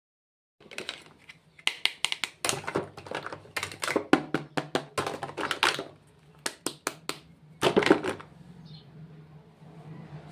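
Makeup packaging being handled: a quick run of clicks, taps and crinkles that stops about 8 seconds in, over a low steady hum.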